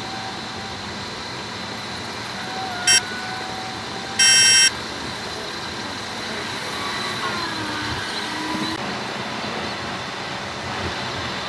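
Steady tyre and road noise of a car cruising at highway speed. Two loud high-pitched beeps or honks cut through it: a short one about three seconds in and a half-second one a second later. A falling drone follows a few seconds later as a tractor-trailer passes close by.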